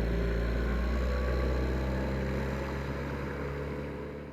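Outboard boat motor running steadily, then fading out near the end.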